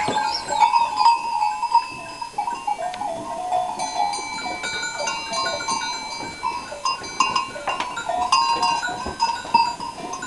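A herd of goats milling in a pen: many neck bells clinking and ringing at random, overlapping strikes, with a few goat bleats among them.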